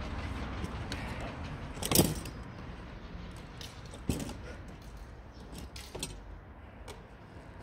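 Steel fencing blades clicking and clashing in a sparring exchange, a few scattered strikes with the loudest about two seconds in.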